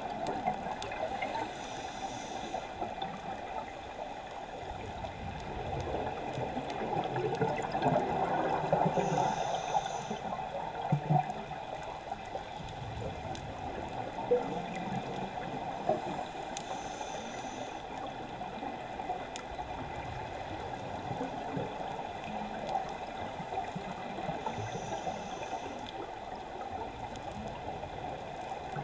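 Scuba breathing heard underwater: a short regulator hiss about every seven or eight seconds and gurgling exhaled bubbles, over a steady muffled water noise.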